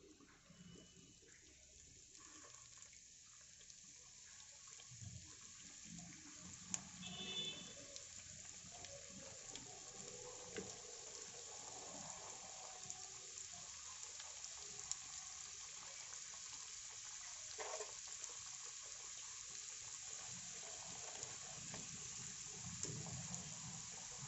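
Samosas deep-frying in hot oil in a pan: a steady sizzle that starts faint and grows louder over the first ten seconds or so as more samosas are slid in, with a few light clicks.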